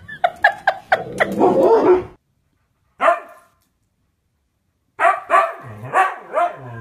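A husky barking at a life-size skeleton: one short bark about three seconds in, then several barks running into drawn-out, wavering woo-woo calls near the end. The first two seconds hold a quick run of short, sharp sounds from the previous clip.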